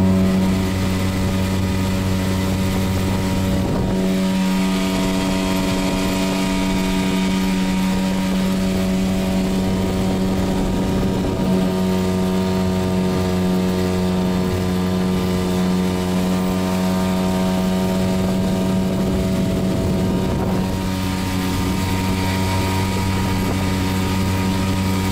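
Apache 5 hp two-stroke outboard running steadily at speed, driving a small inflatable boat up on the plane, with the rush of water and wind over it. The engine's pitch holds level throughout.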